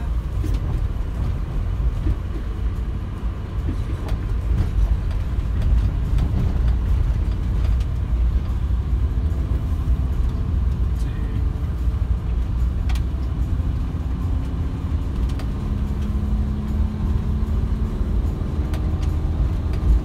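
Steady low rumble of a Fiat-based Knaus camper van driving slowly, heard from inside the cab: engine and tyre noise on a narrow, rough forest road, with a faint engine hum coming up in the last few seconds.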